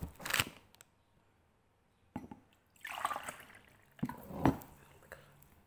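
Close-up wet eating sounds from a bowl of instant noodle soup: several short separate slurps and clicks, with a longer wet stretch about three seconds in and the loudest one near the end.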